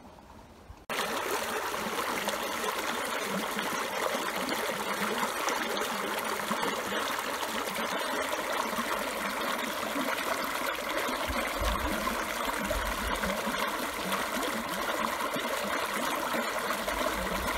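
Shallow water welling up and rushing over stones, a steady splashing stream noise that starts abruptly about a second in.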